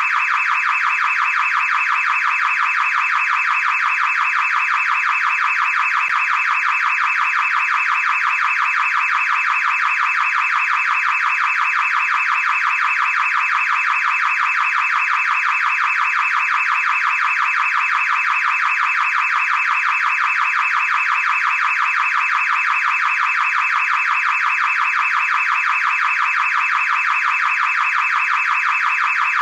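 Car alarm sounding continuously: a loud, fast electronic warble that keeps the same pitch and level without a break.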